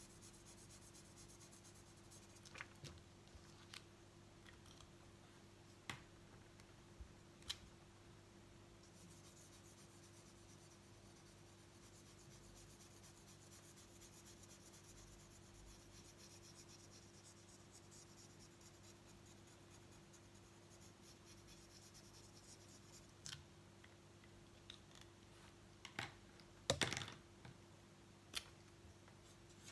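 Felt-tip marker faintly rubbing on paper as a drawing is coloured in, over a low steady hum, with scattered clicks and taps of markers being capped, uncapped and set down on a wooden table; the loudest cluster of taps comes near the end.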